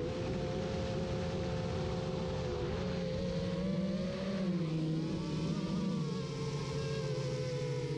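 Brushless motors and 7-inch propellers of a Darwin FPV quadcopter whining steadily in flight, with wind rush. The pitch dips and climbs with throttle changes around the middle.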